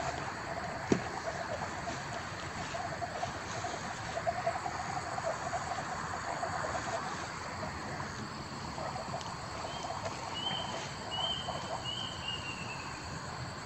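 A steady background chorus of animals, typical of frogs and insects, with a pulsing call through the first half and three short high calls near the end. A sharp tap comes about a second in.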